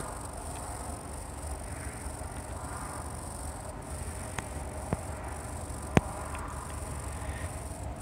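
Quiet outdoor night ambience: a steady high hiss over a low rumble, broken by three sharp clicks in the second half, the last the loudest.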